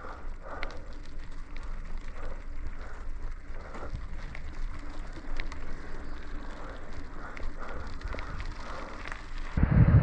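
Mountain bike (Trek Marlin 6) rolling along a dirt trail: the tyres crackle over grit and small stones, with scattered clicks and rattles from the bike, over a low wind rumble on the helmet-camera microphone. Near the end it cuts suddenly to a louder, deeper wind rumble.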